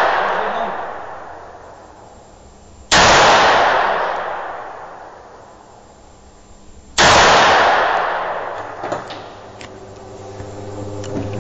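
Two pistol shots about four seconds apart, each echoing and dying away over about two seconds in an indoor shooting range. The opening second holds the fading echo of an earlier shot, and a steady low hum begins near the end.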